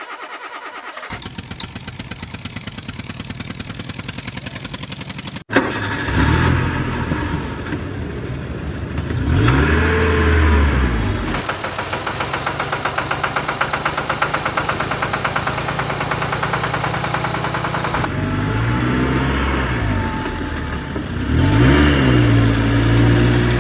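Engine running with a rapid steady pulse, then after an abrupt cut about five seconds in, revving up and falling back several times.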